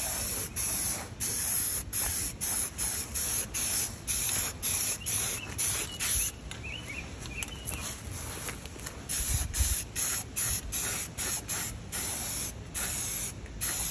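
Aerosol spray can of primer hissing in short, quick bursts, about two a second, with a few seconds of fainter spraying past the middle.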